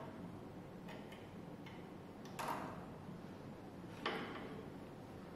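Faint, scattered clicks and knocks of small instrument parts being handled and fitted back together, with two louder knocks about two and a half and four seconds in.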